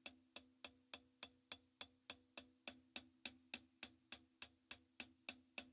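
Closed hi-hat struck with the tip of a drumstick in a steady, even pulse of about three and a half strokes a second, played on the harder part of the cymbal for a more strident sound. A faint steady low ring runs underneath.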